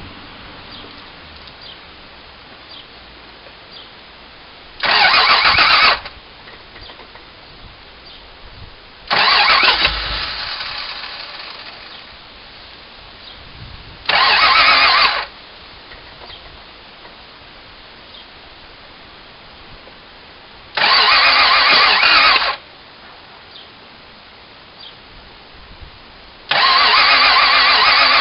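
A vehicle engine being cranked by its starter in five separate tries of one to two seconds each, without starting. The second try trails off over a few seconds, and the last is still cranking at the end.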